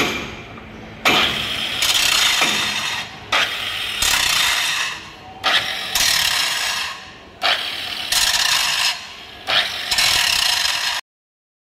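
Electric angle grinder grinding steel on a heavy truck's drum-brake assembly, in five loud passes of about two seconds each, with the motor running more quietly between them. The sound cuts off suddenly near the end.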